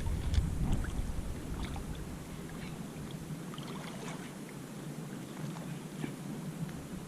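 River water lapping and trickling, with small scattered splashes, and a low rumble that fades out within the first second or so.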